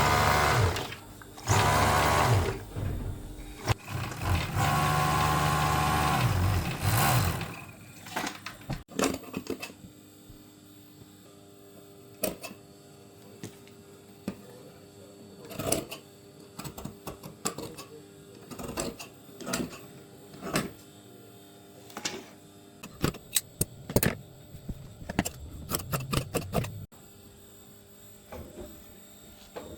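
Electric sewing machine running in three short bursts of steady stitching at the start, followed by scattered clicks and knocks of handling at the work table.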